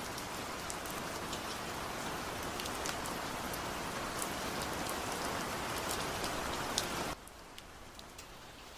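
Food sizzling in a hot pan, a steady hiss with scattered crackles, dropping abruptly to a quieter sizzle about seven seconds in.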